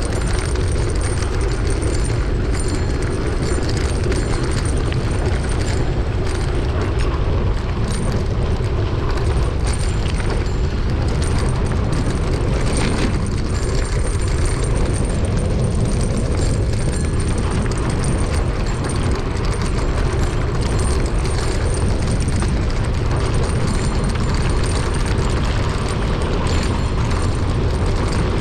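Steady wind buffeting the camera microphone during a mountain-bike ride, a loud, even rumble with small bumps and rattles running through it.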